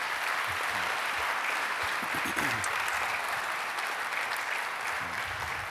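A congregation applauding, a steady dense clapping that thins slightly near the end.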